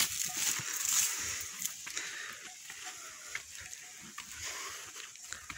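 A flock of sheep and goats moving along a dry, stony creek bed: feet and hooves crunching and knocking on the stones, loudest in about the first second and a half, with faint animal calls.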